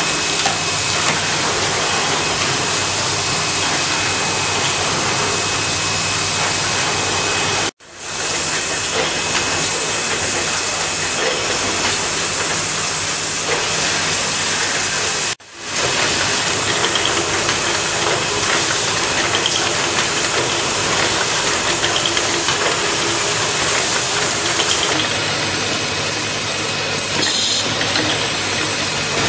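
Automated micro switch production and assembly machinery running: a steady dense hiss with a low hum underneath. It drops out briefly twice, about eight and fifteen seconds in.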